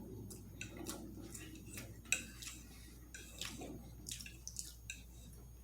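Wet mouth sounds of someone eating: irregular chewing smacks and lip clicks, with a sharper click about two seconds in.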